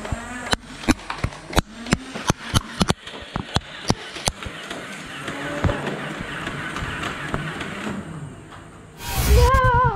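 A quick, irregular series of sharp clicks and knocks for about four seconds, then a steady hiss, and near the end a loud wavering tone as music starts.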